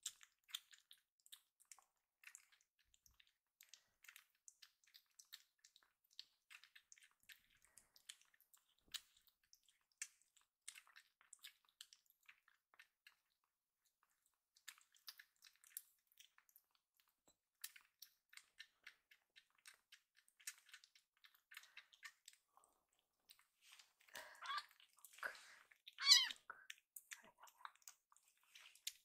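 Young kitten suckling milk from a feeding bottle's nipple: soft, quick wet clicks and smacks. Near the end it breaks off to meow loudly twice, a kitten crying for more milk.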